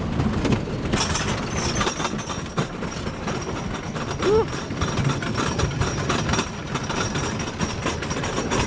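Roller coaster train rattling and clicking along its track as it climbs away from the ground, with a thin steady high whine over the clatter.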